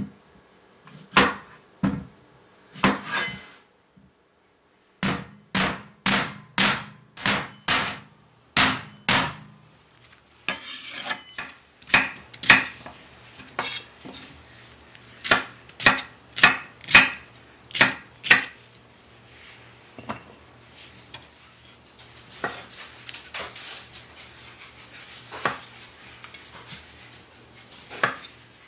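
Kitchen knife chopping cucumber on a wooden cutting board: a run of sharp knocks of the blade on the board, about one or two a second, with a short pause about four seconds in. Near the end come softer, quicker cuts as the knife halves cherry tomatoes.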